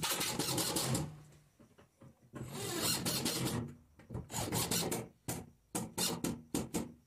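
Craftsman cordless driver running as it drives black screws into pine boards, the screw grinding into the wood. Two long runs come in the first four seconds, then a string of short bursts.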